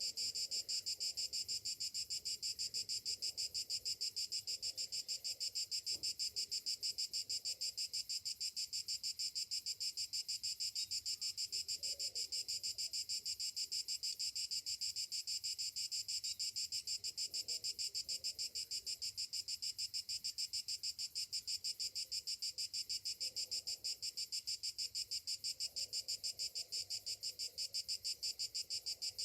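Cicadas calling in a steady, high-pitched chorus with a fast, even pulsing rhythm.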